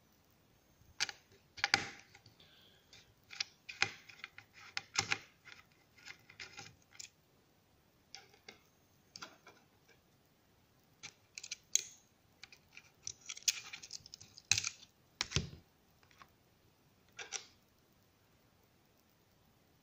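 Handling noise from the opened netbook: irregular clicks and light taps in scattered clusters with short quiet gaps, the loudest near the start and around fifteen seconds in.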